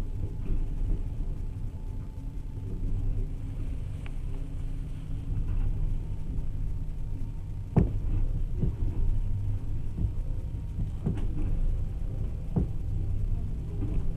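Passenger train running, heard from inside the carriage: a steady low rumble of wheels on rails. In the second half a few sharp knocks come as the wheels pass over track joints, the loudest about halfway through.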